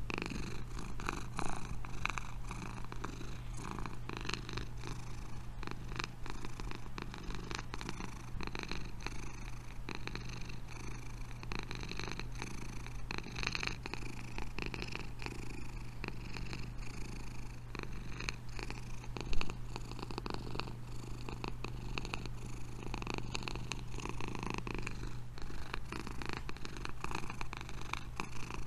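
Domestic cat purring steadily, a continuous low rapid rumble, with one short sharp knock about two-thirds of the way through.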